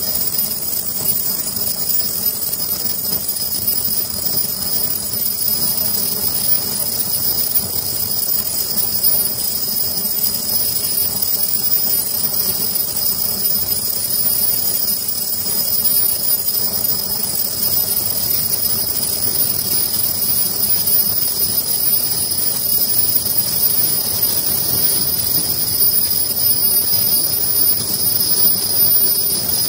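Ultrasonic non-woven sleeve-making machine running: a continuous mechanical clatter and hum with a steady high-pitched whine over it.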